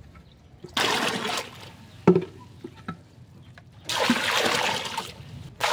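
Water splashing in two loud bursts, one about a second in and a longer one from about four seconds to near the end, with a single sharp knock in between.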